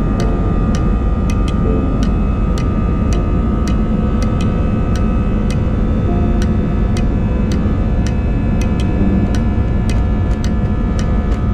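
Airbus A319's turbofan engines running with a steady rumble and whine, heard inside the cabin, while the wheels tick over runway joints or lights about twice a second as the jet rolls down the runway at the start of its takeoff.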